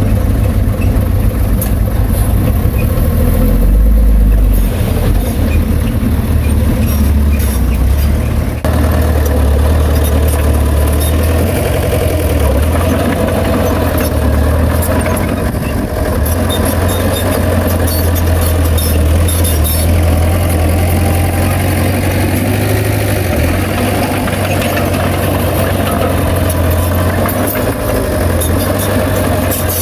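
Bulldozer's heavy diesel engine running steadily, with scattered light clicks and rattles over the engine's deep drone.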